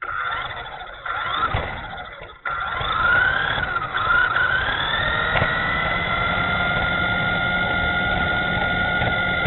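The 370 brushed electric motor and drivetrain of a Dromida SC4.18 1/18-scale RC short course truck whining. The whine rises in pitch as the truck picks up speed, then holds steady and high, over a low rumble of tyres on concrete, heard through the onboard FPV camera. The sound briefly cuts out about two and a half seconds in.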